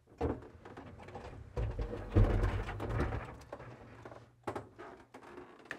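A revolving darkroom door being turned and walked through: a run of knocks and rumbling, loudest about two seconds in.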